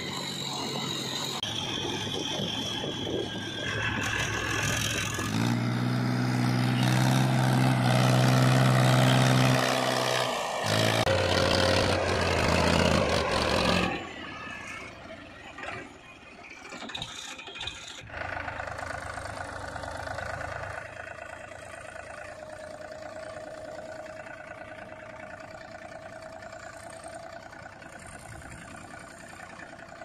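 Powertrac Euro 50 tractor's diesel engine running, with a loud steady drone from about five seconds in that drops away suddenly near the middle, then quieter, steady running.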